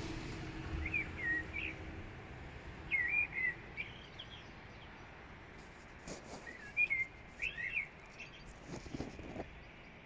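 A songbird singing a few short warbled phrases, separated by pauses of a couple of seconds, over a faint steady background hiss.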